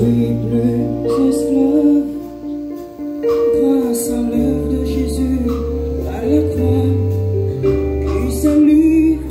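A choir singing over amplified accompaniment, with long held bass notes that shift in pitch every second or two under the voices.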